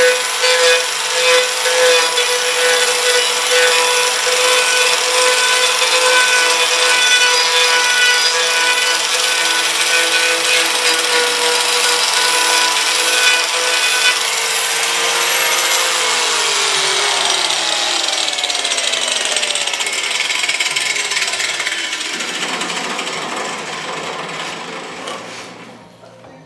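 Hand-held angle grinder working the wooden rings of a turned spiral piece, a steady motor whine with the rasp of the disc on wood. A little past halfway it is switched off and the whine falls steadily in pitch as the motor spins down, fading out near the end.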